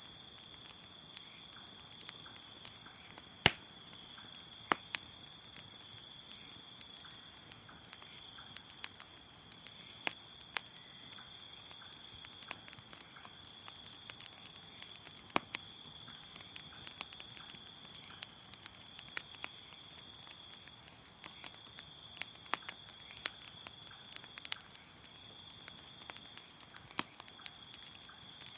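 Crickets chirping in a steady high trill, with a bonfire crackling: sharp pops at irregular intervals, the loudest about three and a half seconds in.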